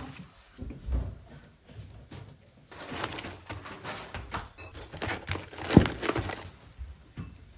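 Irregular knocks and rustling of objects being handled, with one sharp, loud knock a little before six seconds in.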